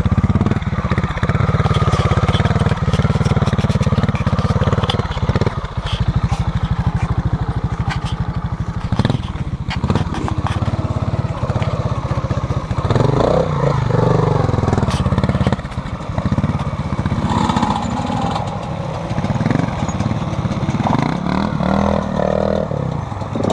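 Single-cylinder two-stroke trials motorcycle engine running at a steady idle, with a few brief rises in its note.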